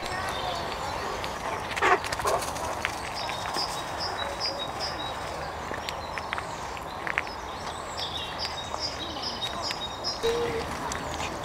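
Outdoor woodland ambience with rustling and a few knocks, the loudest about two seconds in, and short runs of high, evenly repeated chirps.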